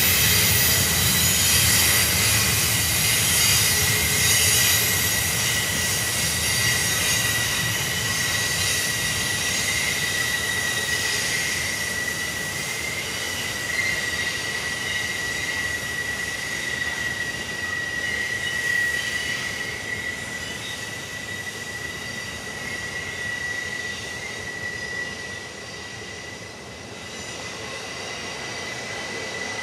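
Wheels of a double-stack intermodal freight train squealing in one steady high note as the cars grind through a tight curve, over the rolling rumble of the train. The rumble dies down after the first few seconds and the whole sound slowly fades as the cars move away.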